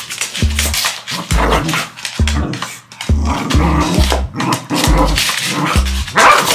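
A dog growling and barking in rough play with a cat, over background music with a steady kick-drum beat.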